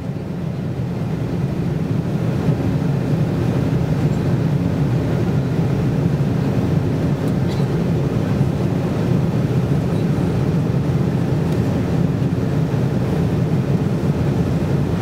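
Airliner cabin noise in flight: a steady low drone of engines and rushing air, swelling up over the first couple of seconds and then holding level.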